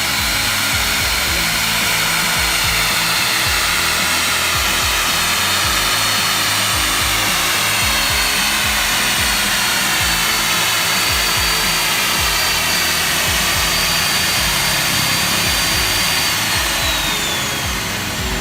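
T-REX core drill running under load, its diamond core barrel grinding through a concrete bridge segment with a steady high motor whine. The whine falls in pitch near the end as the motor winds down.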